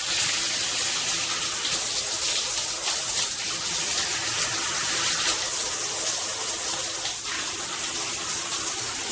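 Water spraying steadily from a Moen 26112 Magnetix handheld shower head.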